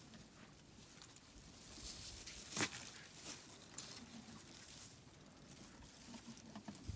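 Faint rustling and crackling, with one sharp snap a little over two and a half seconds in.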